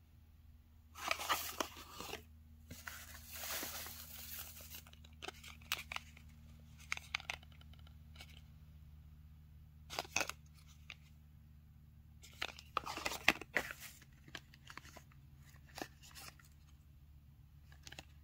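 Small cardboard boxes and shredded paper filler being handled: irregular bursts of rustling and crinkling with a few sharp clicks and taps, the loudest about a second in and around thirteen seconds.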